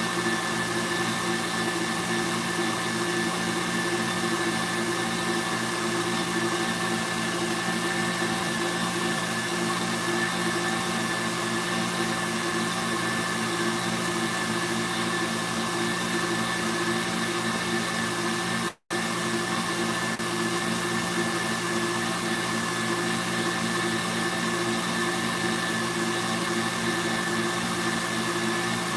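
KitchenAid stand mixer whipping Italian meringue, a steady motor hum with a constant whine. The sound drops out for an instant about two-thirds of the way through.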